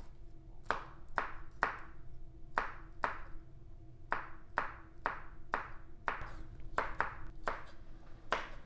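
A kitchen utensil striking a bowl about fourteen times, roughly two strikes a second, each strike ringing briefly.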